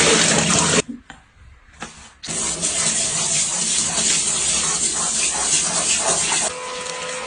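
A steady rushing noise, like running or spraying water, that drops out briefly about a second in, resumes, and turns quieter near the end.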